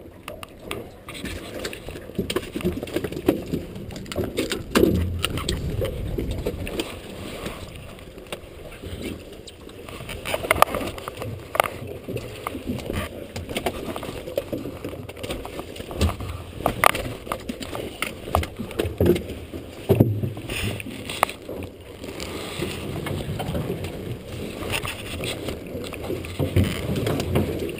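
Gillnet being hauled and picked over the side of a boat: irregular knocks and clatter over a steady wash of water noise, muffled by a waterproof camera case.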